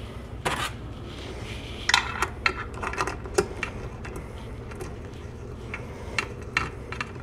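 Irregular metallic clicks and clinks of a ratchet and socket snugging up a bolt on the kickstart ramp of an aluminium Lambretta chain case cover, over a steady low hum.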